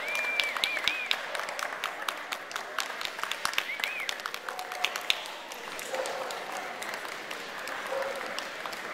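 Audience applauding, dense clapping that thins out after about five seconds, with a few short high-pitched squeals in the first few seconds.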